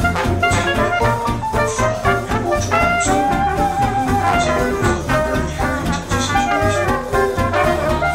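Upbeat jazz music with horns over a steady beat.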